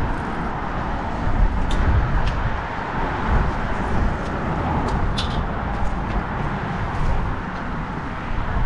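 Steady noise of road traffic, with a few short clicks.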